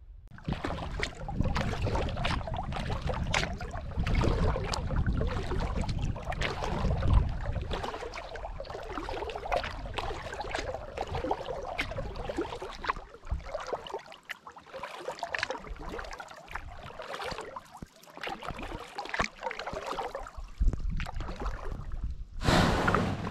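Kayak paddle strokes in the water: the blades dip and splash about once a second, with a low rumble during the first eight seconds or so. Near the end comes a louder rush as the bow of the kayak runs up onto a sandy shore.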